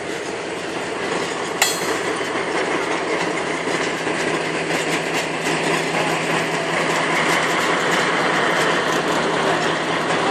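Train rolling along the track: a steady noise of wheels on rails that grows slightly louder in the second half. One sharp click about a second and a half in.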